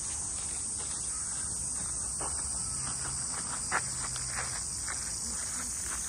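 Steady high-pitched chorus of insects in the trees, with a few short faint chirps in the second half.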